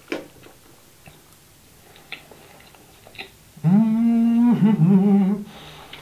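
A man's closed-mouth "mmm" hum while he chews: starting about three and a half seconds in, one held note that glides up and holds, then a shorter wavering one, together about two seconds. A few faint mouth clicks from chewing come before it.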